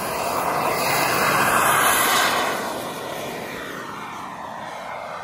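A radio-controlled model of the Aermacchi MB-339 jet trainer taking off under full power, its jet rush swelling to its loudest about two seconds in as it passes, then dropping in pitch and fading as it climbs away.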